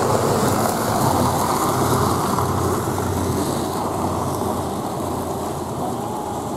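1952 Bristol KSW double-decker bus's diesel engine running as the bus pulls away, its sound slowly fading as it draws off.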